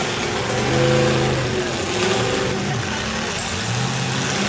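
Demolition-derby truck engines revving, their pitch rising and falling as the throttle is worked, loudest about a second in.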